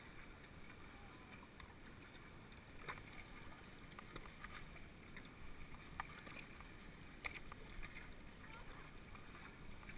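Faint water lapping and small splashes from someone wading beside a floating amphibious ATV whose engine is not running, with a few light taps.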